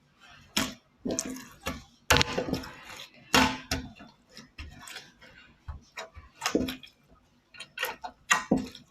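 Slime being squeezed and worked in the hands, giving a run of irregular wet clicks and pops.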